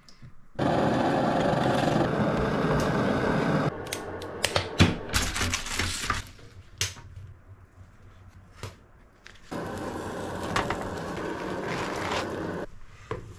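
A camp stove's burner running with a steady rush for about three seconds. Then come scattered knocks and clicks of a metal pan and spatula, and near the end a grilled cheese sandwich sizzling as it fries in butter in a hot pan.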